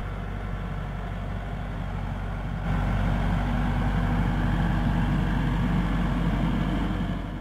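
Massey Ferguson 385 tractor's diesel engine running steadily under load as it pulls a rotavator through flooded mud. The engine grows louder about a third of the way in and fades out near the end.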